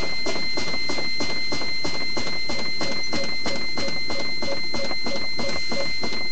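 Truck's low-air warning buzzer sounding continuously, a steady high tone with a fast even pulse of about five a second: the sign that air brake system pressure has dropped below about 60 PSI.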